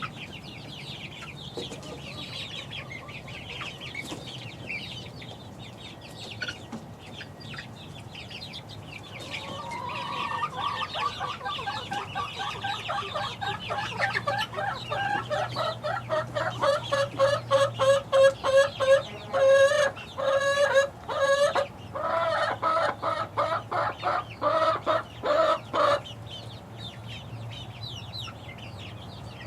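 Six-week-old chickens peeping, then one bird calling in a long run of rapid, repeated notes that grow louder and cut off suddenly near the end.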